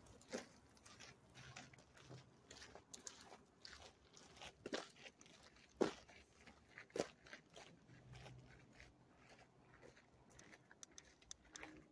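Faint footsteps crunching on a forest trail, irregular, with a few firmer steps about a second apart midway and small clicks and rustles between them.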